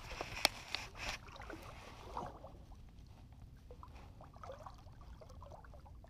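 Water sloshing and gurgling faintly around a sturgeon held by the tail in the water beside a boat for release. A few sharp clicks come in the first second or so.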